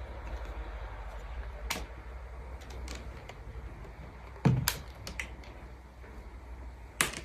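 A few sharp clicks and knocks over a low steady hum, the loudest about four and a half seconds in, with two lighter ones just after it and another strong click near the end.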